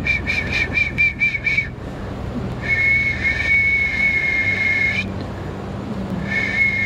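A person whistling into a telephone mouthpiece: a quick run of about eight short high notes, then a long held note, and a second, shorter held note near the end.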